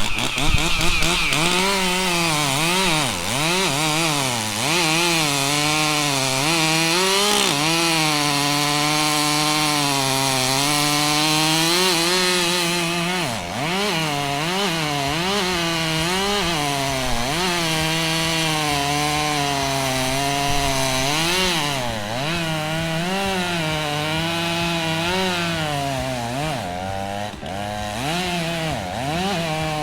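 Stihl chainsaw cutting into a large tree trunk to fell it, running at high revs with its pitch repeatedly dipping under load and recovering as the chain bites into the wood.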